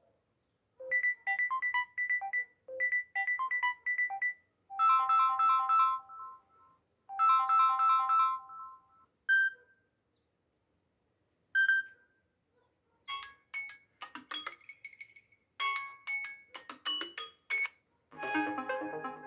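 Samsung Galaxy A10s ringtones playing one after another from the phone's speaker. First comes a quick repeating melody of short electronic notes, then two phrases of sustained chords, two single chime notes with pauses around them, a run of bright plucked notes, and near the end a new, fuller tone begins.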